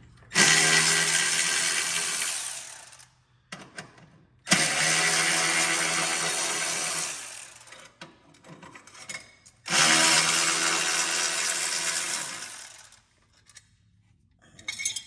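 Cordless drill driver with a T40 Torx bit run in three separate bursts of about three seconds each, backing out the three bolts of a metal cover plate; each run starts suddenly with a steady motor whine and tails off at the end.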